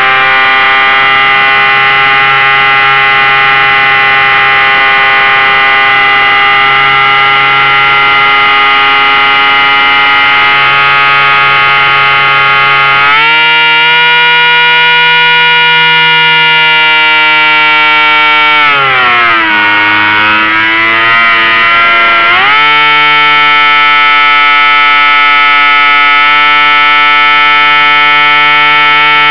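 Model plane's motor and propeller whining steadily, heard from the onboard camera, with the pitch dipping about two-thirds of the way through as the throttle is eased off, then rising back to the same steady whine a few seconds later.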